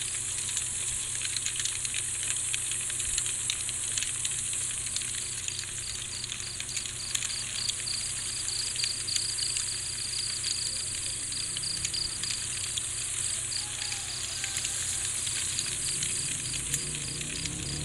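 Crickets chirping in a steady pulsing trill over a continuous fine crackle, with soft music beginning to come in near the end.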